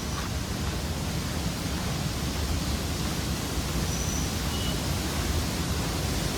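Steady rushing roar of a large monsoon-fed waterfall, its water crashing down from a height.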